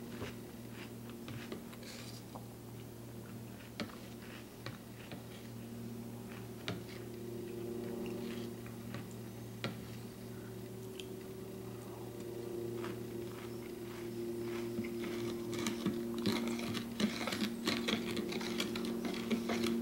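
Metal spoon clicking and scraping against a plastic cereal bowl as cereal in milk is stirred and scooped. The clicks come thicker and louder near the end, over a steady low hum.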